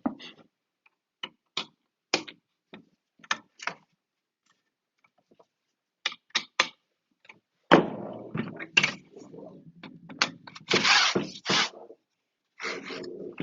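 Clamp parts being handled and fitted onto a pole: scattered sharp clicks and knocks, then from about halfway a denser, louder few seconds of clatter as the clamp is worked into place and tightened.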